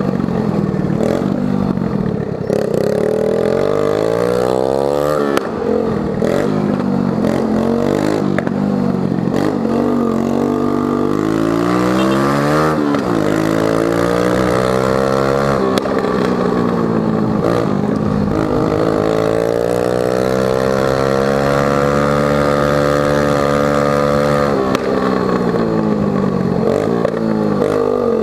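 Dafra Zig 100 scooter engine running through a bare exhaust pipe with the muffler tip broken off, very loud. It revs up several times under acceleration and eases off, holding high revs for several seconds before dropping back near the end.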